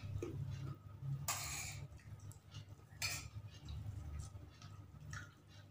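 Quiet eating sounds of a person eating rice and fried fish by hand from a plate: small clicks of fingers and food, with two short, sharp noisy sounds about a second and a half and three seconds in, over a low steady hum.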